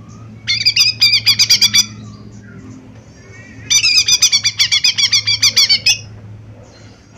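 Lesser green leafbird (cucak ijo mini) singing in two bursts of rapid, repeated high chattering notes, the first about half a second in and the second, longer one from about three and a half seconds, over a low steady hum.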